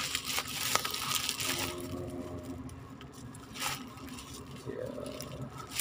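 Bubble wrap and plastic packaging crinkling and crackling as a phone box is pushed out of its bubble-wrap sleeve.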